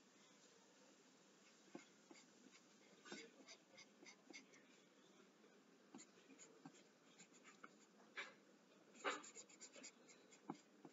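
Faint pencil scratching on paper in short, irregular shading strokes, with a quicker, louder flurry of strokes near the end.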